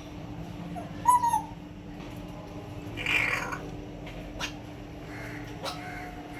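African grey parrot calling: a short, loud whistle-like call about a second in, then a harsh, raspy squawk about three seconds in, followed by a few sharp clicks.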